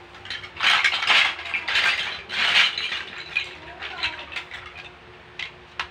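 Plastic Lego bricks clattering as a hand rummages through a loose pile: three loud bursts in the first three seconds, then a few lighter clicks.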